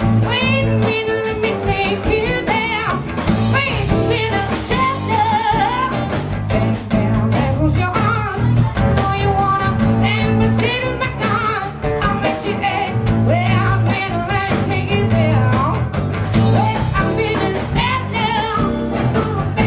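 Live band playing a pop-rock song: drum kit, bass and guitars over a steady beat, with a wavering lead melody line.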